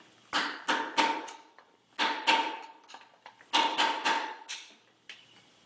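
A punch being hammered against an old headset cup in a steel bike head tube: a series of sharp metallic strikes, mostly in pairs, each leaving a short ring.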